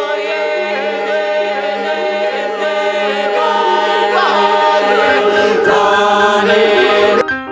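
Soundtrack music: a choir singing held, chant-like notes over a steady low drone. It breaks off abruptly near the end, and piano notes begin.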